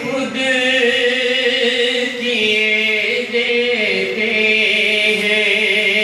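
A man's voice chanting a naat into a microphone, drawing out long held notes, with a change of pitch about four seconds in.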